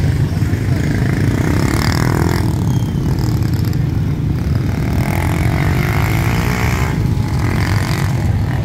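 Motorbike traffic: a steady low rumble of many motorbike engines, with single bikes revving or passing close by about two seconds in and again around five to seven seconds in.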